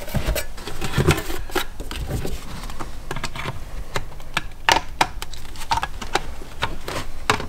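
Irregular clicks, taps and knocks of a metal-cased engine ECU and its multi-pin wiring plug being handled and pushed together, with a few louder clacks, the loudest about three-quarters of the way through and near the end.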